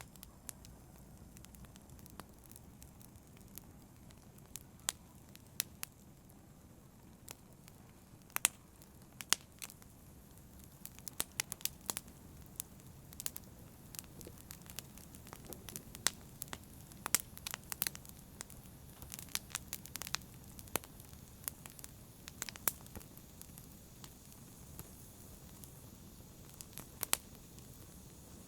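Wood fire burning: a low steady rumble with sharp, irregular crackles and pops from the burning wood.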